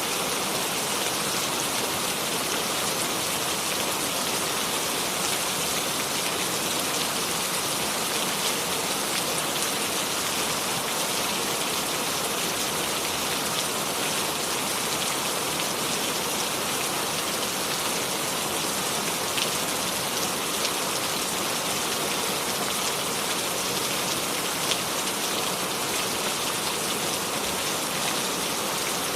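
Steady rain falling, without thunder: an even hiss of rain with the odd single drop ticking out.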